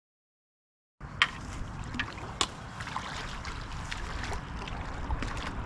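Silent for about the first second, then water splashing as a hooked carp is played close in toward the landing net. Low wind rumble on the microphone runs underneath, with scattered sharp splashes or clicks, the loudest about a second in.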